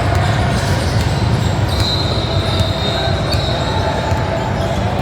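Sound of a basketball game in a gym: a ball bouncing on the court amid steady crowd and player noise. A high squeak lasts about a second and a half, starting about two seconds in.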